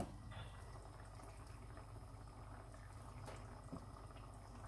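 Thick fish-and-rice sauce simmering faintly in a frying pan on a gas stove, over a steady low hum. A couple of small ticks come after about three seconds.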